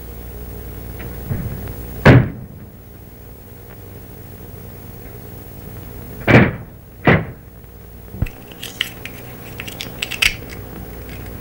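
Three loud thumps, then a run of small metallic clicks from a door's combination lock being worked by hand, over the steady hum and hiss of an old film soundtrack.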